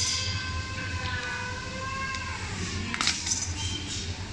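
Sharp clicks and clatter from a rowing machine's pull handle and strap being handled, twice about three seconds in, over a steady high-pitched tone with several pitches that shift slightly.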